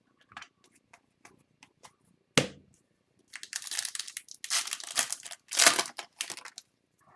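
A sharp knock about two seconds in, then a hockey card pack's foil wrapper being torn open and crinkled in several bursts over about three seconds.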